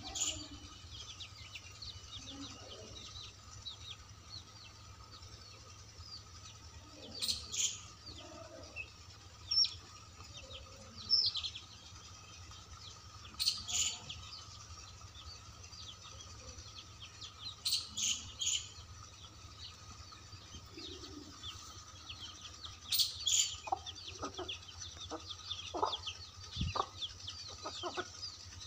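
Chickens foraging: small chicks peeping almost constantly, with louder bunches of cheeps every few seconds and a hen's low clucks now and then. A few short knocks near the end.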